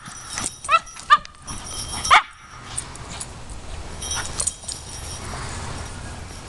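Cavalier King Charles spaniel barking for the ball: about four short, high, rising yips in the first two seconds, then quieter.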